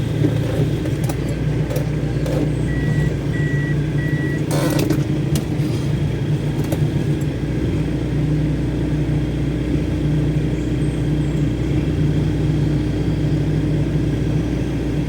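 Off-road 4x4's engine running steadily at low revs, with three short high beeps a few seconds in and a sharp knock about four and a half seconds in.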